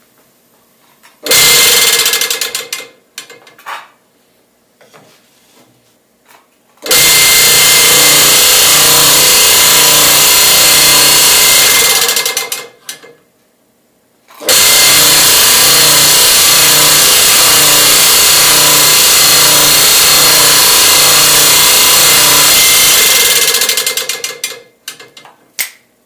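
Delta scroll saw switched on and off three times: a short run of about a second, then runs of about five and nine seconds, each starting abruptly and winding down as the motor coasts to a stop.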